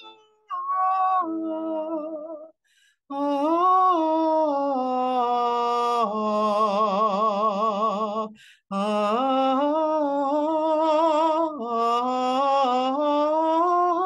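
A woman singing alone without words as a vocal meditation: long held notes that slide up and down between pitches, with a wide vibrato on a long low note in the middle and a few short breaks for breath.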